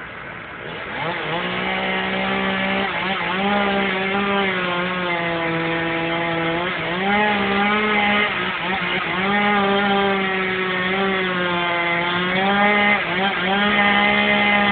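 Chainsaw cutting into a tree trunk. It comes up to speed about a second in, then its pitch sags as the chain bites into the wood and climbs again, several times over.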